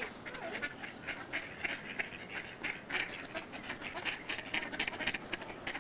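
A flock of ducks, mostly mallards, quacking: many short calls in quick, overlapping succession.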